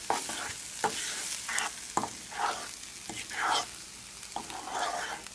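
Meat, spinach and corn sizzling in a hot frying pan, stirred with a utensil in irregular scraping strokes.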